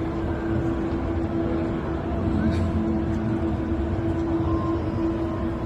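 Steady engine drone: a low rumble under a constant hum.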